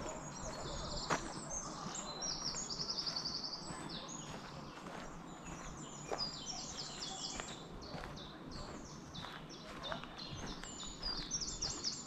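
Several woodland birds singing and calling over each other, with a rapid trill about two to three seconds in. A walker's footsteps on the forest path come through now and then as soft knocks.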